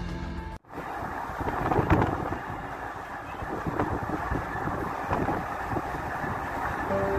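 Ride noise from inside a moving vehicle on a rough, unpaved road: a steady rumble full of irregular jolts and rattles, with the hardest jolt about two seconds in. Music cuts out just before and comes back in near the end.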